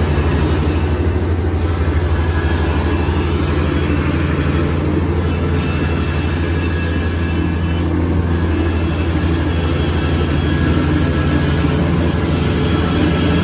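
Kubota rice combine harvester running steadily, its engine giving a constant low hum with no change in speed.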